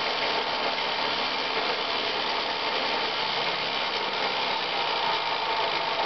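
Homemade branch chipper built on a wood planer, running steadily with a fast rattle as its knife drum spins.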